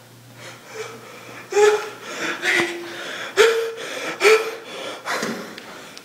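A young man gasping and groaning in a quick series of short, sudden breaths with voice in them, each starting sharply and trailing off, about one a second.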